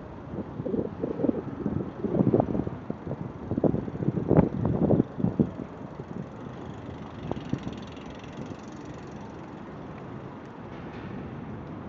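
Steady wind and traffic noise, with a cluster of short, irregular, indistinct sounds in the first half.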